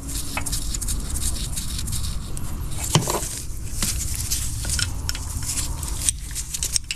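Combination wrench working a half-inch bolt loose: irregular light metal clicks and scrapes of the tool on the bolt and the parts around it, with a sharper knock about three seconds in.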